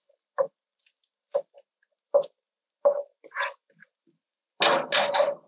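Spatula stirring chopped garlic and ginger around a wok, scraping and knocking the pan in short strokes about once a second, with a longer, louder scrape near the end.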